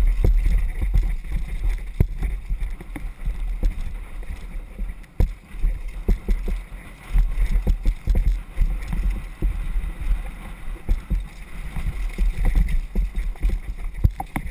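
Wind buffeting a bike-mounted camera's microphone as a downhill mountain bike runs fast over rough, rocky dirt trail, with frequent knocks and rattles from the bike.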